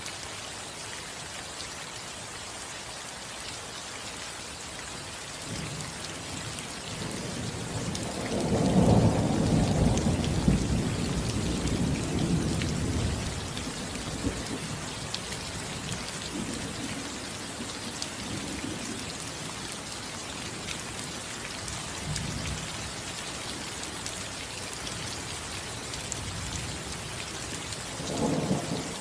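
Steady rain falling on a roof, with a low rumble of thunder that builds about a quarter of the way in, peaks, and rolls away over several seconds. A shorter rumble comes near the end.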